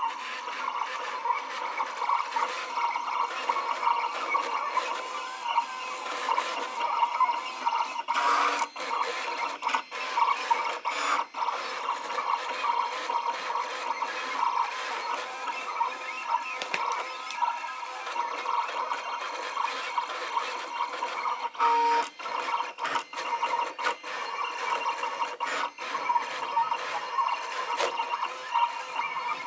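Siser Romeo vinyl cutter cutting: its motors whir in short, shifting runs as the blade carriage and feed rollers move the mat back and forth, with a few clicks along the way. It is cutting glitter heat-transfer vinyl on the lighter Easy Weed settings, so the blade is not cutting through.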